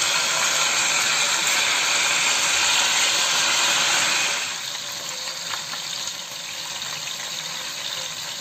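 Oxtail pieces sizzling as they brown in a hot enamelled cast-iron pot, a steady loud hiss that drops to a quieter sizzle with a few crackles about four seconds in.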